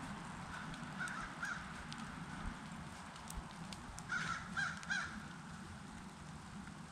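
A bird calling in short repeated notes: two calls about a second in, then three more in quick succession about four to five seconds in.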